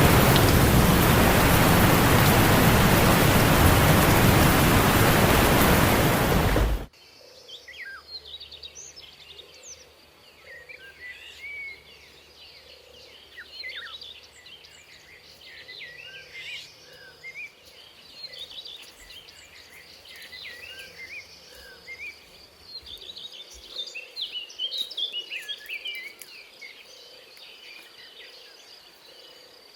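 Heavy rain hissing for about the first seven seconds, cutting off abruptly. Then many birds chirping over a steady high insect drone.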